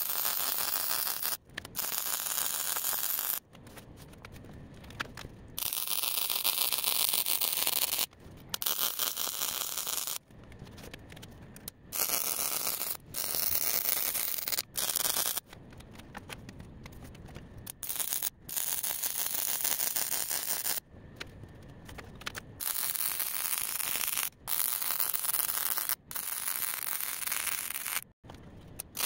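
Electric arc welding on the steel griddle: a crackling hiss that starts and stops sharply in runs of one to three seconds, with short breaks between them.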